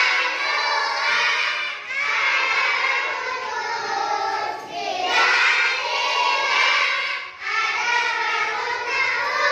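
A group of young children singing a song about the shapes of objects together, in phrases a few seconds long with short breaks between them.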